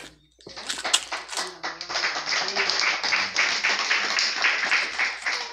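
A group of people clapping fast and steadily, starting about half a second in, with voices faintly underneath.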